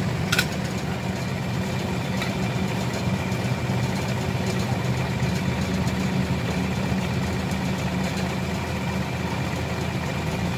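Vehicle engine idling steadily, with one short sharp click about half a second in.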